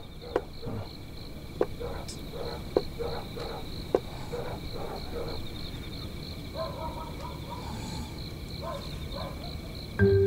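Crickets chirping steadily at night, a high, even pulse about three times a second, with a few faint ticks.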